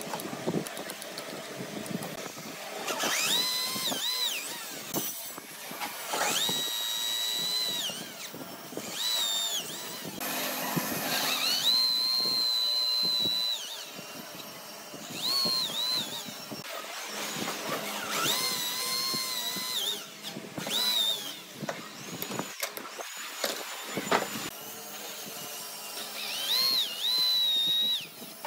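A handheld electric power tool cuts into hardwood in about seven short bursts. Each time its motor whine rises as it spins up, sags under load while cutting, and winds down when released. The longest run comes near the middle.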